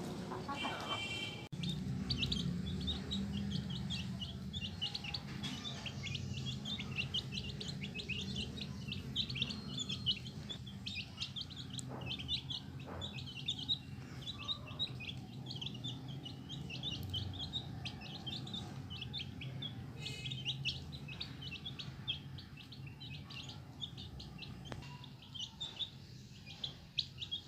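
Chicks peeping: a continuous flurry of short, high chirps.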